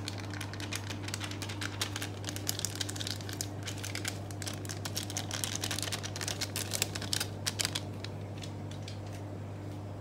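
Foil seasoning sachet crinkling as it is squeezed and shaken empty over a pot, a dense run of small crackles that stops about two seconds before the end, over a steady low hum.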